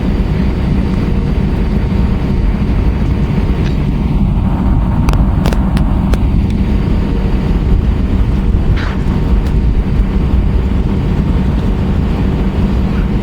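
Steady, loud rumble of an Airbus A320-232 heard from inside the passenger cabin: IAE V2500 engines and airflow. A few sharp clicks come about halfway through, and one more a little later.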